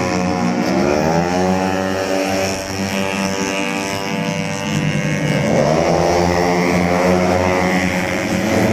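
Tuned 130cc automatic-scooter race engines running hard at high revs as the bikes pass, their pitch rising about a second in and again at about five and a half seconds as riders accelerate.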